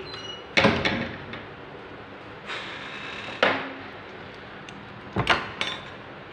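A door banging shut about half a second in, then a scraping slide that ends in a sharp knock, and two more knocks near the end.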